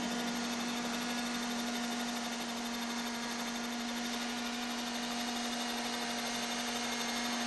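A steady low hum held at one pitch, with faint hiss beneath it and no other events.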